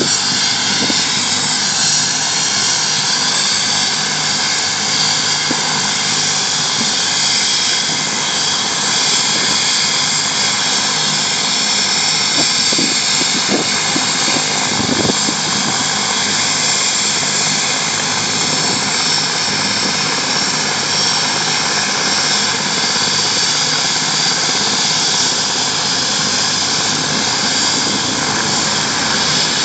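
Helicopter running steadily on the ground, not yet lifting off: a continuous loud engine and rotor noise with a faint steady whine.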